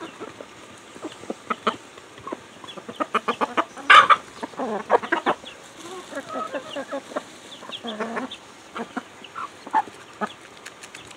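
Flock of hens clucking softly while pecking corn kernels from a hand and the ground, with many quick sharp taps of beaks on grain and one louder sharp sound about four seconds in.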